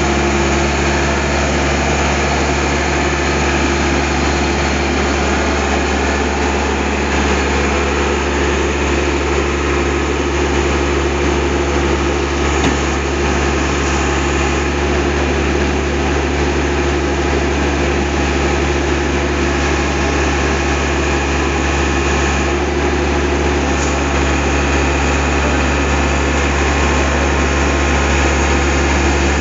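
Tata Hitachi EX70 excavator's diesel engine running steadily as the machine crawls down off a lorry bed.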